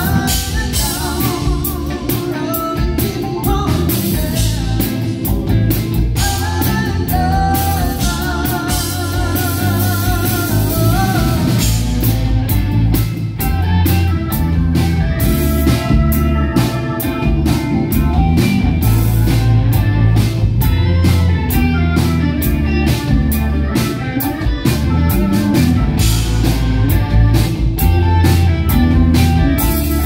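Live soul-rock band playing: electric guitars, keyboards and drums on a steady beat, with a man singing lead and holding long notes with vibrato near the middle.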